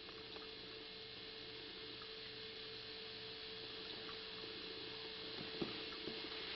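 A faint steady hum with a single held tone over a hiss, and a few soft clicks in the second half.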